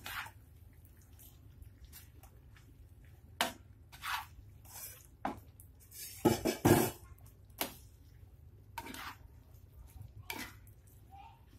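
A metal spatula scraping and knocking against a non-stick wok while stirring squid in a thick chili paste: scattered single strokes, with the loudest pair a little past the middle.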